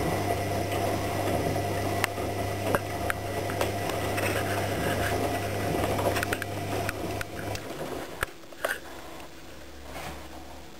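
AEG Lavamat 76730 front-loading washing machine with its drum turning: a steady motor hum with scattered clicks and knocks. About three quarters of the way through the motor cuts out and the drum comes to rest, followed by two sharp clicks.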